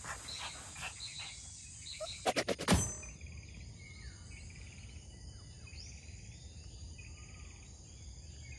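Outdoor ambience: faint knocks and rustling, then a quick cluster of loud clicks about two and a half seconds in. After that come short buzzy trills repeating about once a second, with scattered whistled bird notes.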